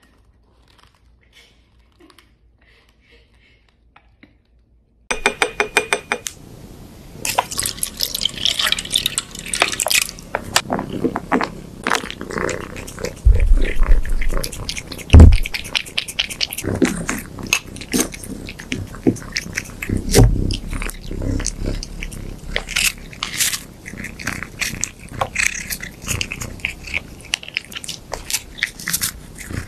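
A cat chewing and crunching its food close to the microphone: many sharp crunches and mouth clicks, faint for the first few seconds, then much louder from about five seconds in.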